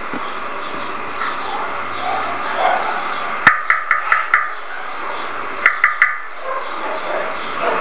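Knife chopping herbs on a cutting board: quick groups of sharp knocks, one about three and a half seconds in and another about six seconds in, over a steady hiss.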